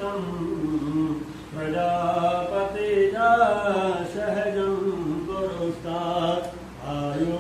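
A man chanting Sanskrit mantras to Shiva in a steady, sing-song voice, holding long notes. There are brief breaks about a second and a half in and near the end.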